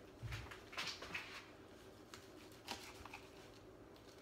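Faint kitchen handling sounds: a soft thump just after the start, then a few short rustles and scrapes as a kitchen knife starts slicing a nori-wrapped sushi roll on a silicone baking mat.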